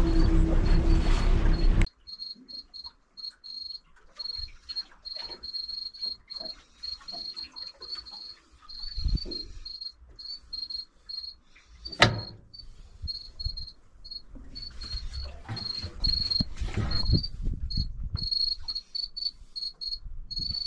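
Boat motor running under way for about two seconds, then a cut to a fish finder's fish alarm chirping in short high beeps of one fixed pitch over and over. Irregular low thuds sound throughout, with a sharp knock about twelve seconds in.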